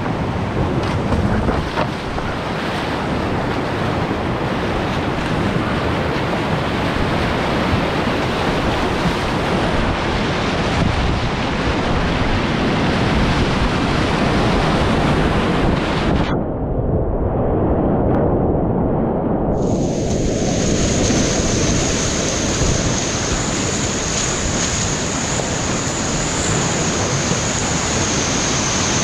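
Whitewater rapids rushing and crashing close around a kayak. A little past the middle the sound goes dull and muffled for about three seconds, then returns with a thin, steady high whine over the rush of water.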